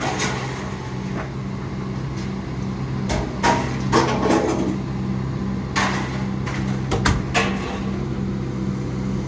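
A steady low engine hum as a vehicle idles, with a series of sharp knocks and bangs from about three seconds in to about seven seconds in.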